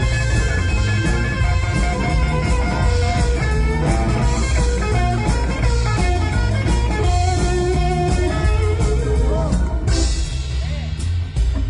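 Live blues-rock band playing: an electric guitar lead with bent, wavering notes over bass and a drum kit.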